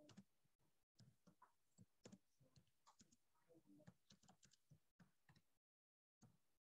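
Faint computer keyboard typing: a quick, irregular run of keystroke clicks that pauses near the end.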